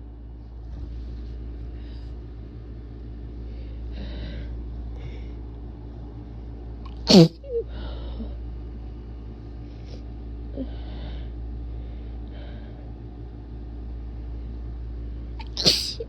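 A person sneezing hard and wet twice, once about seven seconds in and again near the end, with breathy inhales in between, over a steady low hum. The sneezes were brought on deliberately while the person was congested with a cold and allergies.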